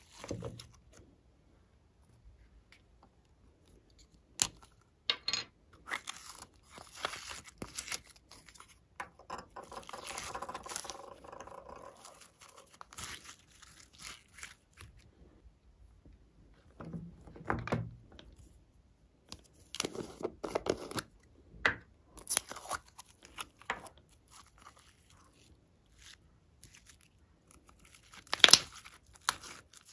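Glossy glitter slime being stretched, squeezed and folded by hand, making sticky crackles, clicks and small pops at irregular intervals. A longer run of crackling comes about ten seconds in, and the sharpest pops come near the end.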